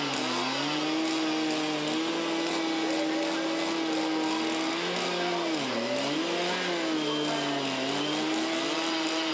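Two-stroke carving chainsaws running at high revs, more than one at once, the engine pitch holding steady and dipping briefly a few times.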